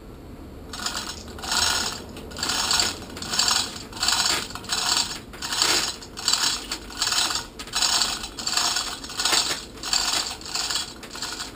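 Manual chain fall (chain hoist) ratcheting as its hand chain is pulled hand over hand, hoisting the boat's port engine: a rhythmic clatter of pawl clicks and chain rattle, about three pulls every two seconds.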